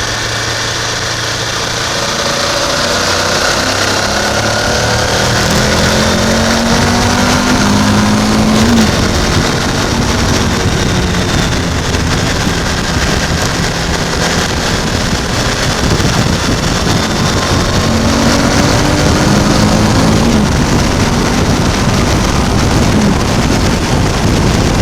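Suzuki V-Strom 1000's V-twin engine accelerating hard up an on-ramp, its pitch climbing and dropping back at upshifts about nine seconds in, again around twenty seconds and once more near the end. Wind rush on the bike-mounted camera's microphone builds with speed.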